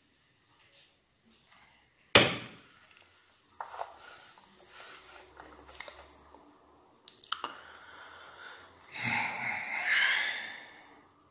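Knocks on a wooden table: one loud sharp knock about two seconds in, then a few lighter knocks and clicks, and a longer rustling stretch near the end.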